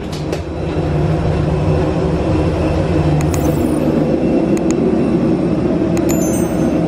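Steady loud rumble of airliner and apron noise heard while boarding an Airbus A320. Over it come a few sharp clicks and, near the end, a short bell-like ding.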